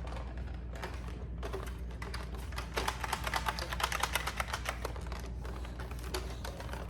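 Rapid light clicking and rattling of plastic parts as a Nerf sniper blaster is handled and worked, the clicks thickest in the middle stretch. The blaster is not working right.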